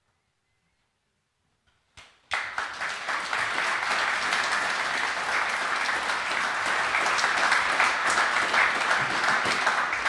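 Near silence, then about two seconds in a seated audience breaks into steady applause, many hands clapping at once.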